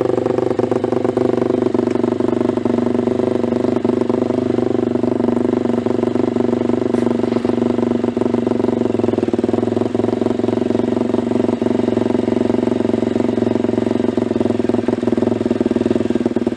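Racing motorcycle engine running steadily at idle, with the bike up on a rear paddock stand, holding an even pitch with no blips of the throttle.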